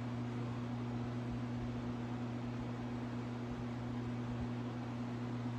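Room tone: a steady low hum with an even hiss, unchanging throughout.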